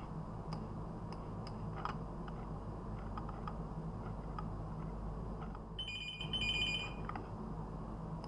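Electronic telephone ringer sounding two short rings about six seconds in, over scattered faint computer clicks and a steady low hum.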